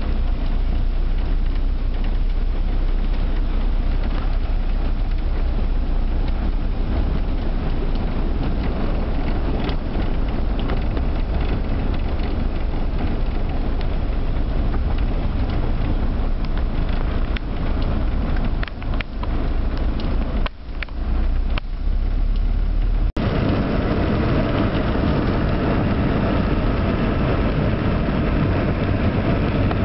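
Car driving through heavy rain on flooded streets, heard from inside: a steady rush of rain and water under the tyres over a low engine rumble. A few clicks and brief dips come past the middle, and the sound changes abruptly about three-quarters of the way through.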